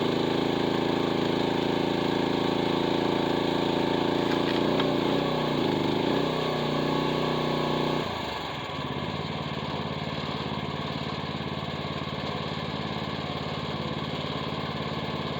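Mini excavator engine running at high throttle, its pitch dipping and wavering about five to six seconds in as it bogs under the load of the splitter driving through a large oak block. About eight seconds in it drops abruptly to a lower, steady idle.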